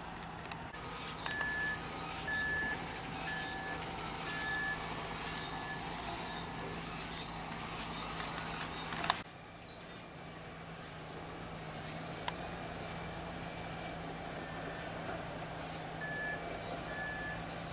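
Cicadas buzzing loudly in a high-pitched drone that starts about a second in, cuts out briefly past the middle and swells again near the end. Under it, a construction vehicle's reversing alarm beeps about twice a second, with a low steady machine hum.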